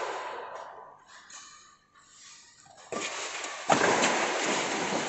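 Badminton spectators shouting and cheering. A burst at the start fades within a second, and the crowd breaks out again about three seconds in, getting louder a moment later.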